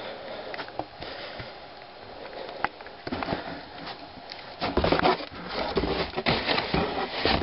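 Cardboard box being handled, its flaps rustling and scraping, with bumps and rubbing from a handheld camera; the rustling grows denser and louder about two thirds of the way through.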